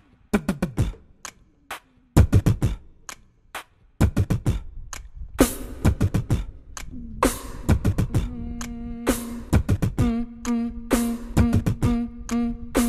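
A beatbox-style percussion beat: scattered hits at first, settling into a steady, busier groove about four seconds in, with a sustained low tone joining from about seven seconds.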